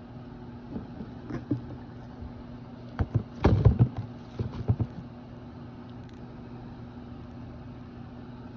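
Lotion bottles and cream containers being put back into a box: a cluster of plastic knocks and clatters about three to five seconds in, with a few lighter taps near the start, over a steady low hum.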